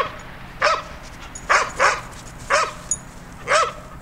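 A dog barking repeatedly, about six short barks at uneven intervals.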